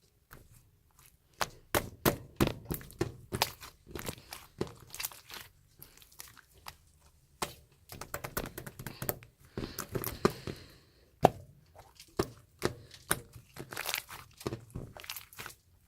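Hands squishing and pressing a tough, chewy slime: a dense run of irregular sticky clicks and small pops, with one louder snap a little past the middle.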